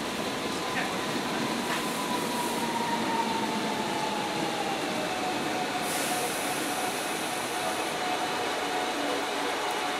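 A Korail 311000-series electric multiple unit drawing in along the station's far track: a steady rumble under a thin motor whine that slowly drops in pitch as the train slows, then holds. A brief high hiss comes about six seconds in.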